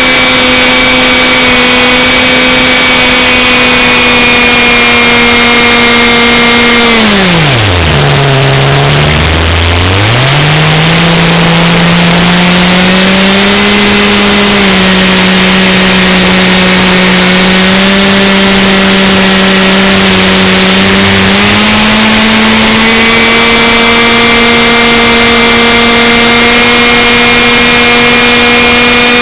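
Engine running fast and steady with a rushing noise behind it. About a third of the way in its pitch falls away steeply almost to nothing, then climbs back and holds at a somewhat lower pitch, and rises again to the first steady pitch near the end.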